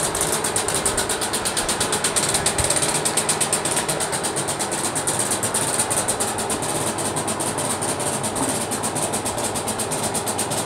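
Steady, rapid mechanical ticking, about eight ticks a second, with no break or change in pace.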